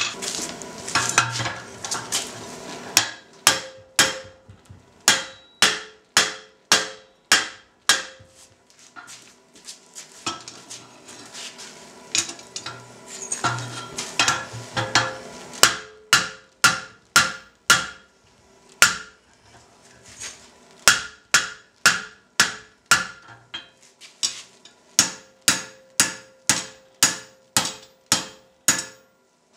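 Hand hammer striking the red-hot eye of a forged log hook on the anvil horn and face, in runs of blows about two a second with short pauses; each blow rings briefly. The smith is rounding the eye and closing up its gap.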